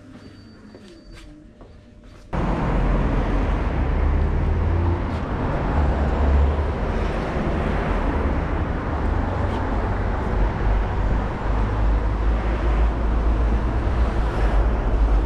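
Faint indoor room tone that cuts off abruptly about two seconds in to loud, steady outdoor street noise with a deep rumble, typical of road traffic.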